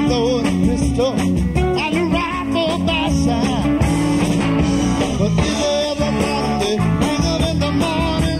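Southern rock band playing live, an electric guitar lead with bent, wavering notes over bass, drums and keyboards.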